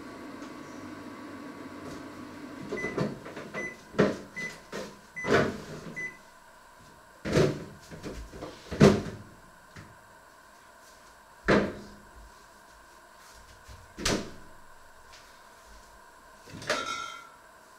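Kitchen handling sounds. A steady hum stops about three seconds in, followed by a run of short high beeps. Then come several sharp knocks and clacks of doors and objects being moved and set down, and a brief squeak near the end.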